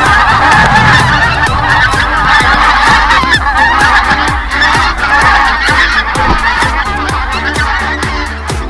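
A large flock of wild geese honking, many calls overlapping in a continuous clamour. A steady electronic drum beat runs underneath.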